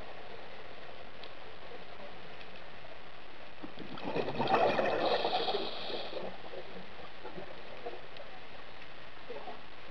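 Exhaled bubbles from a scuba regulator gurgling for about two seconds, starting about four seconds in, over a steady underwater hiss.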